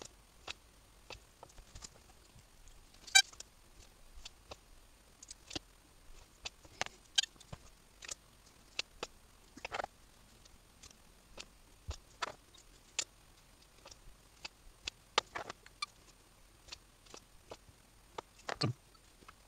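Scattered small clicks and taps of hand-work on an accordion reed block: a tool and the reed plates being handled while the reeds are sealed in with wax. One sharper click about three seconds in, and a soft knock near the end.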